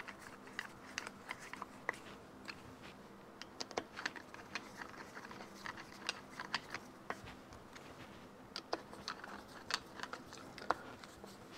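Screwdriver turning the screws that draw the aluminium crankcase halves together: faint, irregular small clicks and ticks of the tip seating and turning in the screw heads.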